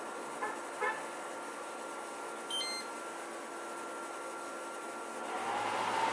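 Samsung AW05B5171TWA window air conditioner running with a steady hum and a fixed whine, the mechanical noise that the owner says stays loud whatever the fan and cooling settings. Short electronic beeps come about half a second, one second and two and a half seconds in. Near the end a louder whine swells and falls away.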